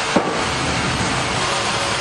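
Sawmill saw and machinery running with a loud, steady din, and a short squeal dropping in pitch just after the start.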